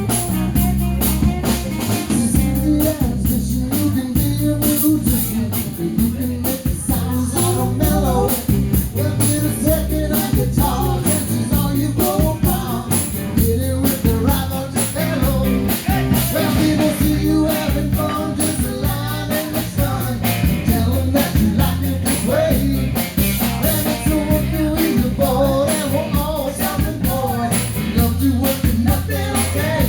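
Live rock and roll band playing, with electric guitar over bass and drum kit keeping a steady beat.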